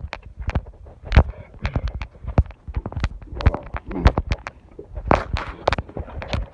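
Footsteps going down the Manitou Incline's steep railroad-tie steps: quick, irregular footfalls and scuffs, several a second.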